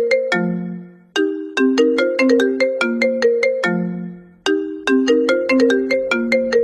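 Mobile phone ringtone melody: a short phrase of about a dozen quick, chiming notes ending on a longer low note, repeated over and over.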